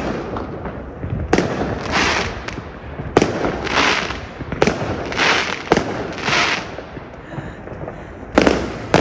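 Fireworks going off: five sharp bangs a second or two apart, each followed by a hissing crackle.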